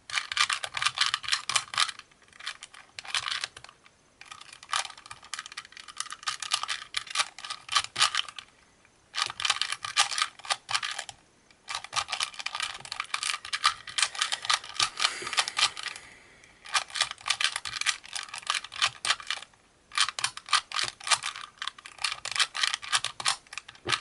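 2x2x2 Rubik's cube (pocket cube) being turned quickly by hand: fast runs of plastic clicking as the layers snap round, broken by several short pauses.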